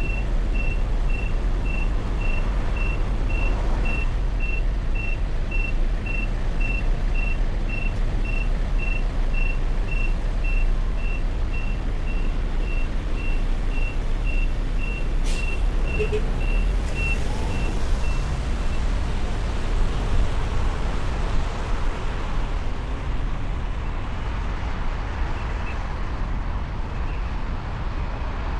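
City street traffic with a steady low engine rumble, and a high electronic beep repeating about twice a second that stops about two-thirds of the way through. A single sharp click comes a little past halfway.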